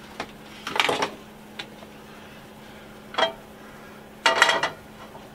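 Kitchenware clattering: a few clinks and knocks of dishes and utensils, the loudest cluster near the end as a frying pan is handled on the stove's grate. A faint steady hum runs underneath.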